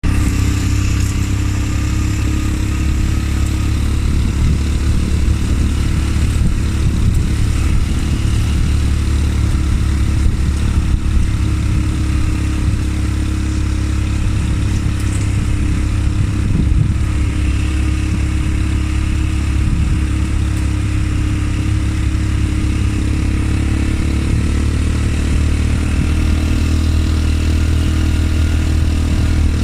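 ATV engine running steadily, a continuous low drone with no big revs.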